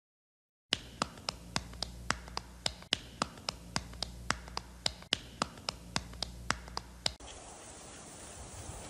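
A dog's wagging tail slapping again and again against another dog's face, about four sharp slaps a second over a low steady hum. The slaps stop about seven seconds in, and faint wind noise follows.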